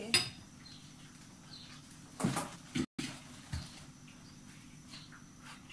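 Metal spoon knocking against a ceramic plate: a sharp clink just after the start, then a couple of duller knocks.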